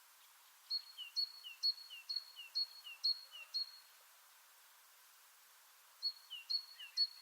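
A single songbird repeating a two-part phrase, a short high note followed by a lower falling note, about twice a second. It sings a run of about seven phrases, pauses for a couple of seconds, then starts a second run near the end.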